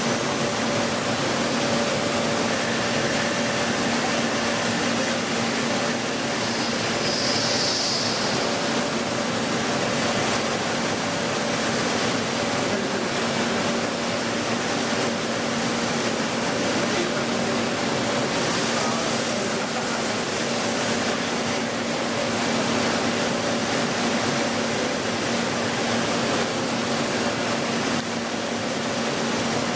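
Multi-axis CNC turning machine running steadily: an even hiss over a constant two-tone hum, with a brief high-pitched sound about seven or eight seconds in.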